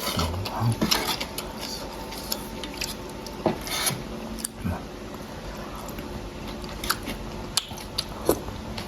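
Cutlery clinking against a noodle bowl in scattered light clicks, with eating sounds.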